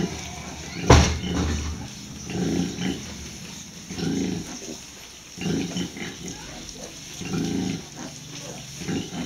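A sow grunting in a slow, regular rhythm, about one low grunt every one and a half seconds, while her piglets suckle: the rhythmic nursing grunting that goes with milk let-down. A single sharp knock about a second in stands out above the grunts.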